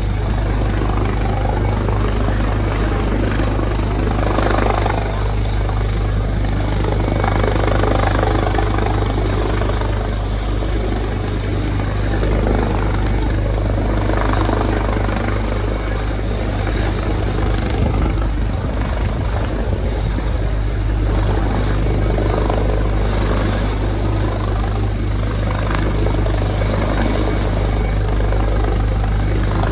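Rescue helicopter running steadily during an airlift from a ship: a constant low rotor drone under a broad rushing noise, with no change in level.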